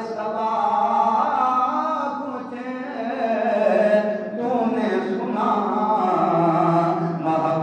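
A man's voice chanting in a melodic, sing-song delivery with long held notes, through a microphone.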